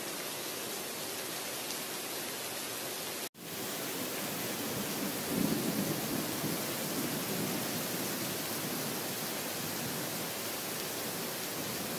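Heavy rain pouring steadily, with a low rumble of thunder swelling about five seconds in and fading over the next couple of seconds. The sound cuts out for an instant a little over three seconds in.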